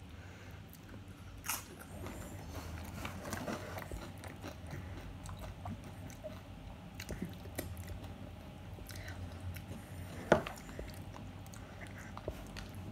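Close-up chewing and crunching of chicken nachos made with tortilla chips, with scattered small clicks and one sharper knock about ten seconds in.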